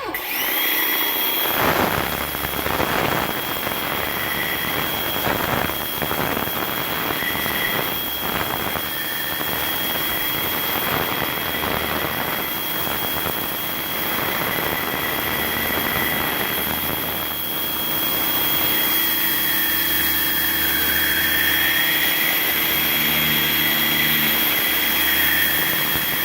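Pressure washer running steadily and spraying, with a constant high whine over a hissing rush of water. Right at the start the pitch has dipped, and it climbs back to full speed within about half a second.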